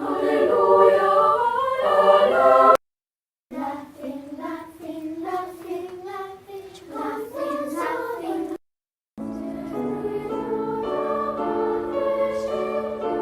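Children's choir singing in three short excerpts, each cut off abruptly by a brief dead silence, about three seconds in and again near nine seconds; the last excerpt holds long, steady chords.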